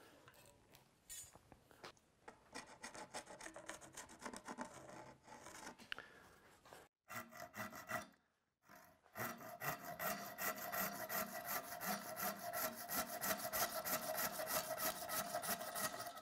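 Hand saw cutting slots across the belly of an Osage orange bow stave clamped in a vise, in rapid back-and-forth strokes. It pauses briefly twice about halfway through, then runs steadier and louder. The slots are cut so that big hunks of belly wood can be popped off when roughing out the bow.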